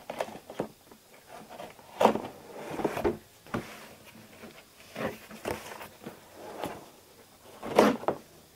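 A cardboard shipping package being opened by hand: irregular scraping, rustling and knocks of cardboard and packing, with louder handling about two seconds in and again near the end.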